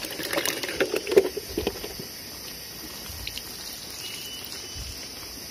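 Rustling and light clicks and knocks in the first two seconds or so, as of someone shifting among leaf litter and handling gear, then a steady quiet background hiss.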